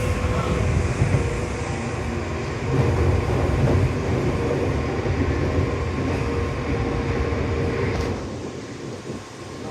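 A train running: a steady low rumble with a faint steady whine over it. It quietens for about a second near the end.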